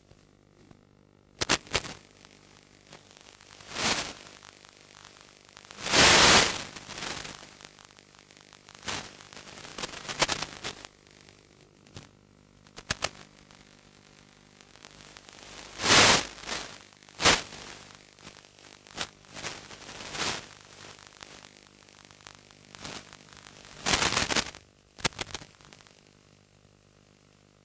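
Bursts of hissing radio static from an analog 5.8 GHz FPV video link, breaking in at irregular moments over a faint steady hum. The longest bursts come about six and sixteen seconds in. They are the sign of the weak link dropping out as the model plane flies.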